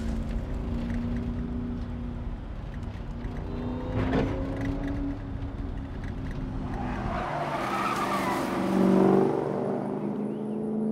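Film soundtrack: a car's V8 engine running steadily as it drives, heard from inside the cabin, with a sharp knock about four seconds in. About seven seconds in the engine rumble drops away and a louder rushing swell follows.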